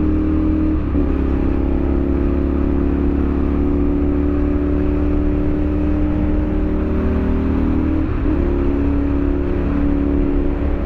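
Sport motorcycle engine running at highway speed under wind rush. Its pitch shifts briefly about a second in and again about eight seconds in.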